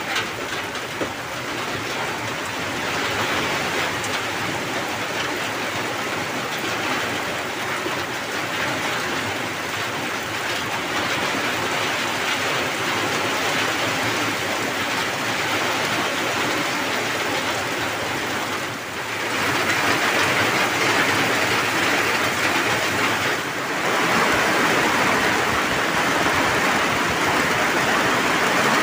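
Heavy tropical downpour: a steady hiss of rain on the hut roof and the ground, with runoff pouring off the roof edge. It grows louder about two-thirds of the way through.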